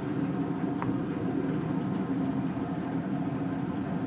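Steady mechanical hum with a few even tones from a Cabela's 36-inch Smoke Station pellet smoker running at its set temperature, its fan going continuously.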